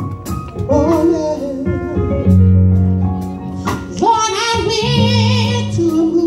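A solo voice singing a wavering, held melody in a church, over instrumental backing of long low held notes and sharp regular beats.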